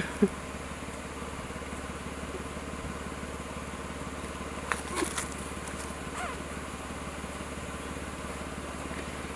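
A vehicle engine idling steadily with a low hum. Two sharp knocks come right at the start, and a few faint clicks about five seconds in.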